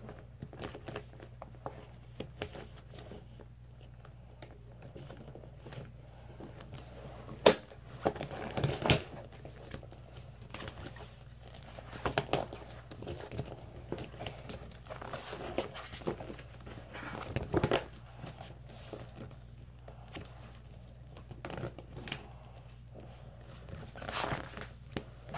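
Rustling and crinkling of a plastic folder, a ring binder and papers being handled, with scattered clicks and knocks. One sharp click about seven and a half seconds in is the loudest sound.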